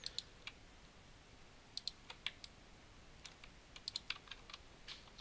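Faint, irregular clicks of a computer keyboard and mouse in small clusters, keys and buttons being pressed while bones are moved in Blender.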